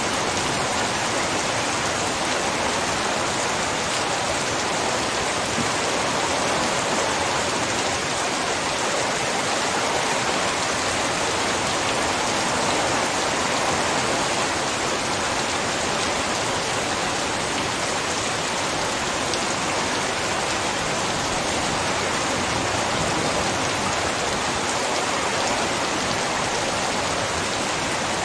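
Torrential rain pouring down in a steady, dense hiss with no let-up.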